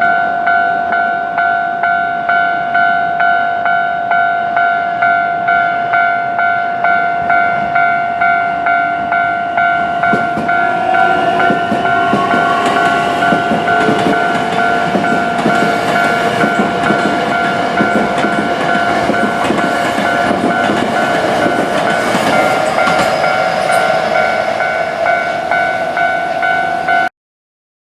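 Japanese railway level-crossing warning bell ringing in an even, repeating two-tone clang, joined from about ten seconds in by a train passing over the crossing with wheels clattering on the rails. The sound cuts out abruptly about a second before the end.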